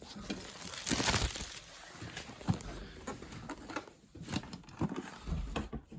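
Handling noise: rustling and a few light knocks and clicks as the fridge's packaging and parts are handled.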